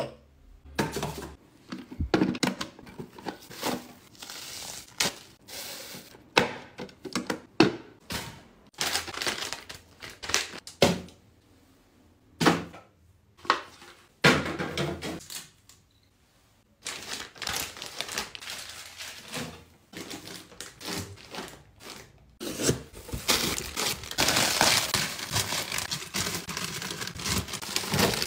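Plastic packaging crinkling and rustling as it is handled, in a string of short separate bursts with occasional thunks of items being set down. The longest, densest crinkling comes near the end, as instant-noodle packets are packed into plastic storage bins.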